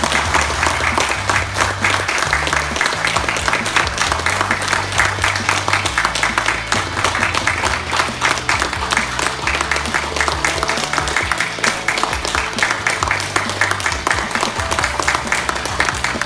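A group of people applauding steadily, over background music with a bass line.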